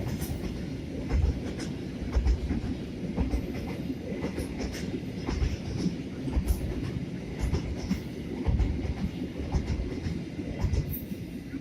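Freight train passing close by: a steady rumble of wagons with irregular heavy thumps and clicks of wheels over the rail joints.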